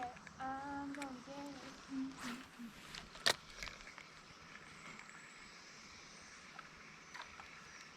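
A soft voice speaking or humming for the first two seconds or so, then one sharp click a little after three seconds in, followed by a faint steady outdoor hiss.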